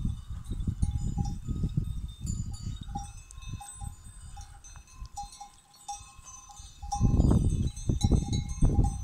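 Bells worn by grazing goats and sheep clinking now and then, over a low uneven rumble that swells again about seven seconds in.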